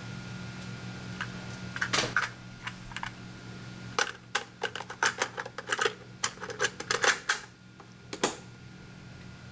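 Stereo sound-effects cassette playing on a 1976 Sony TC-520CS: an irregular run of sharp clicks, a few at first and then a dense flurry in the middle, over steady tape hiss and a low hum.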